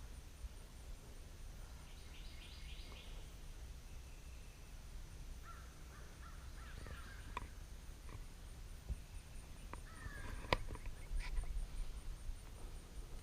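Birds calling: a quick run of harsh repeated notes about two seconds in, then chirping, gliding calls around seven and ten seconds, over a low steady rumble. A sharp click about ten and a half seconds in.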